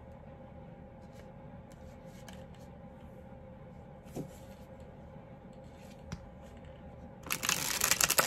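A deck of oracle cards being handled and shuffled: a few soft clicks, then a loud, fast riffle of the deck lasting about a second near the end.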